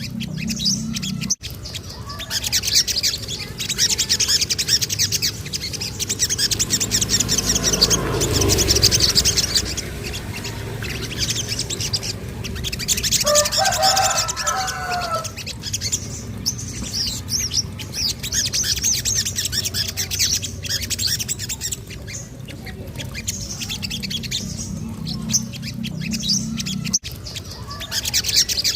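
Sogon (little spiderhunter) singing: dense, rapid high chirps and trills, with a lower, shorter call about halfway through. A low steady hum sits under the song at the start and near the end.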